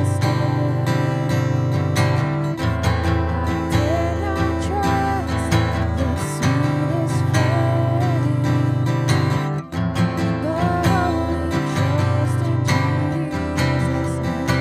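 A woman singing a hymn melody while strumming chords on an acoustic guitar.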